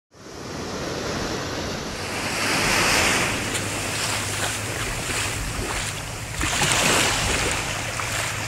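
Ocean surf washing ashore, swelling louder about three seconds in and again near seven seconds, with wind buffeting the microphone.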